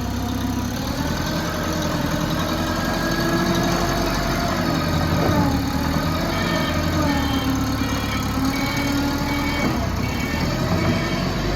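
An engine running steadily, with a pitched whine that slowly rises and falls as the revs change.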